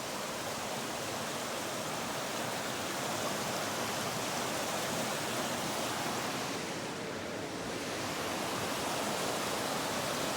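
Water of a small river rushing over rocks, a steady unbroken rush.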